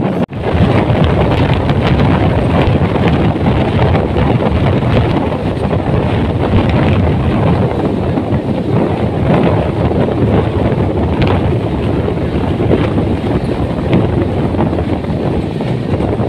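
Passenger express train running at speed, heard from aboard the coach: a steady rumble of the running train with wind rushing over the microphone.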